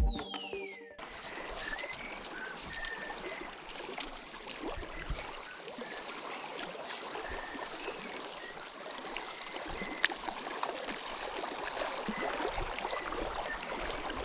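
Water lapping and trickling steadily, with faint short chirps recurring at one pitch. It follows a falling electronic sweep that closes the intro music about a second in.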